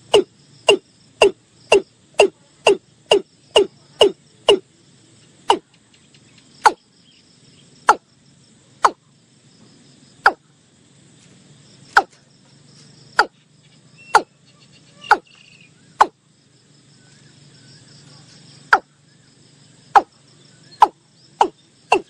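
Watercock calling: a series of short, hollow notes, about two a second at first, slowing to about one a second, with a pause of a few seconds before the notes quicken again near the end.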